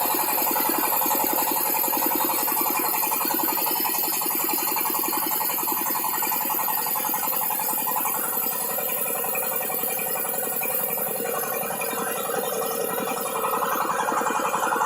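Electric-motor-driven well-drilling rig running steadily, with a fast, even mechanical rattle.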